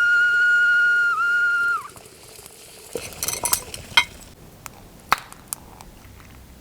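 Ghillie Kettle whistling with steam at the boil: one steady high whistle that wavers once and then falls away and stops about two seconds in. It is followed by a few light metallic clinks and taps of the anodized aluminium kettle being handled.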